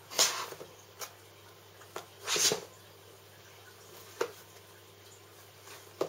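Cardboard product box being handled and turned over: a few short scrapes and rustles, the longest about two seconds in, and a sharp tap a little after four seconds.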